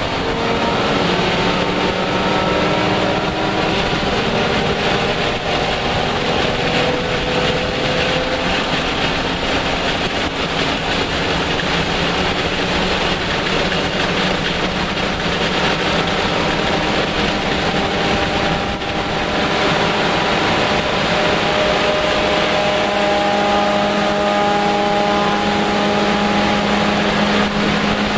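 Lexus IS300 race car's 3.0-litre inline-six engine running hard at sustained speed, heard from inside the stripped cabin over heavy road and wind noise. Its pitch creeps up over the first several seconds, then holds nearly steady.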